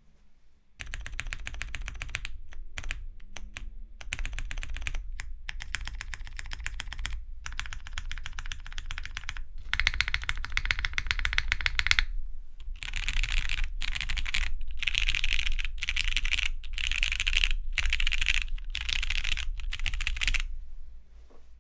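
Fast typing on a Bongo Neko custom mechanical keyboard with lubed and filmed Cherry MX Brown tactile switches and GMK keycaps: dense runs of key clacks broken by short pauses. About halfway through the typing turns brighter and sharper, and it stops a second before the end.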